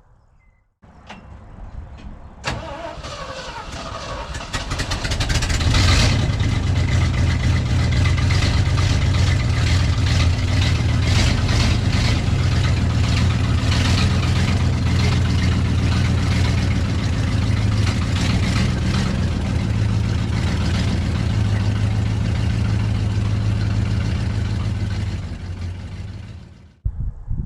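The 1978 Ford F600 truck's engine starting, with a click about two seconds in. It builds over a few seconds to a loud steady run, then fades out near the end.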